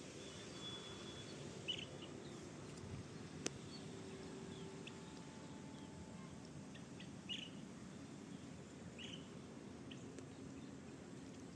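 Scattered short, high bird chirps from a forest at dusk, one every second or two over faint background hush, with a single sharp click about three and a half seconds in.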